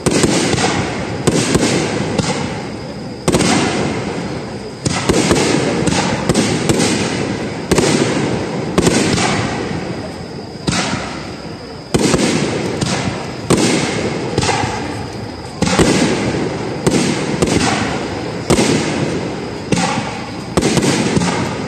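Aerial firework shells bursting one after another, a sharp bang every second or two, each trailing off in a rumbling, crackling decay.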